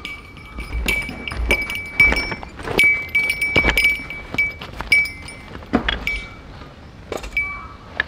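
Footsteps on a leaf-strewn forest floor while metal camping gear hung on a loaded backpack and bag clinks and rings with each step.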